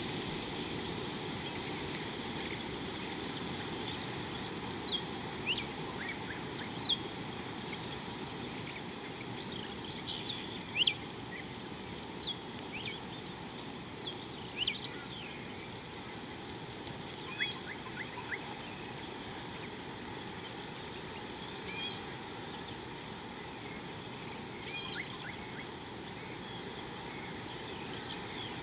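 Wild birds giving scattered short chirps and whistles over a steady low rushing noise and a steady high hiss. One call about a third of the way in stands out as the loudest.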